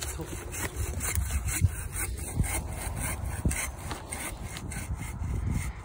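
Bow saw cutting through the trunk of a cut-your-own Christmas tree, with quick, even back-and-forth strokes of the blade rasping through the green wood.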